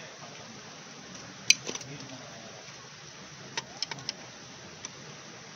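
Wrench and steel nuts clinking against the engine as the cylinder head of a Honda EP1000 generator is unbolted. There are a few sharp metallic clicks: the loudest about one and a half seconds in, then a quick cluster of lighter clinks around four seconds in.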